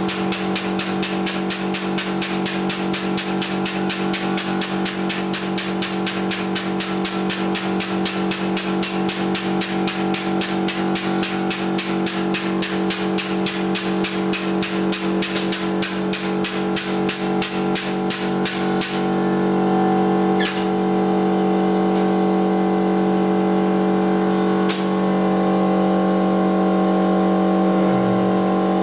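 A hydraulic press's electric pump motor runs with a steady hum and rapid, even clicking at several ticks a second while the ram bears down on a crushed pumpkin. About two-thirds of the way through, the clicking stops and the hum runs on steadier as the ram lifts, with two single sharp clicks a few seconds apart.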